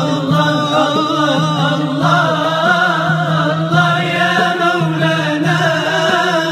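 Nasheed: an Islamic devotional song, with voices chanting a flowing melody over a steady low hum.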